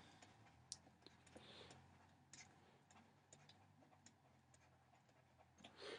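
Near silence, with faint scattered ticks of a stylus tapping the glass of a tablet screen during handwriting.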